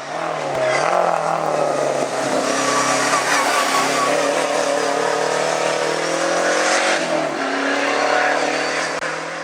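Race car engine at high revs, accelerating hard up a hillclimb course with several gear changes. It grows loud about half a second in and fades near the end as the car passes.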